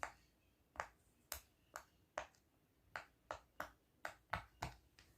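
Silicone pop-it fidget toy in the shape of a bow, its bubbles pressed one after another: about a dozen soft, sharp pops at an uneven pace of two or three a second.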